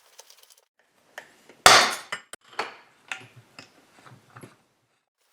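A tool knocking on chainsaw engine parts to work a stuck part free: one loud, sharp strike about a second and a half in, then a run of lighter knocks and metallic clinks.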